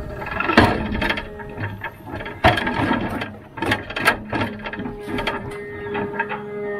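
Rottne F13-C forwarder's crane at work: a steady hum from the running machine under repeated sharp clanks and knocks from the crane and the logs held in its grapple, the loudest about half a second and two and a half seconds in.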